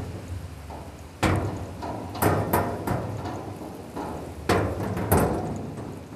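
Swaying suspension bridge deck knocking and clattering under bicycles riding across it: about six loud, irregular knocks, the biggest near the middle and near the end, over a low steady rumble.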